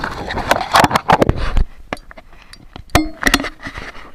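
Handling noise of an action camera in its plastic housing: a run of clicks, knocks and rustling against the case, thinning out after about a second and a half, with a few more clicks near the end.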